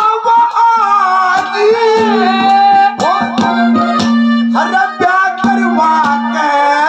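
A male singer performing a Haryanvi ragni into a microphone through a PA, over a steady held drone note and drum strokes from the accompanying musicians.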